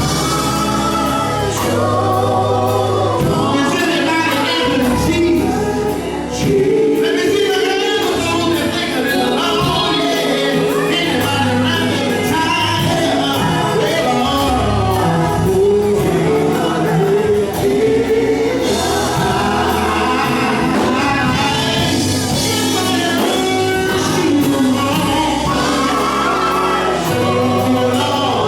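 Gospel vocal group singing in harmony over a band, with a sustained bass line and drums.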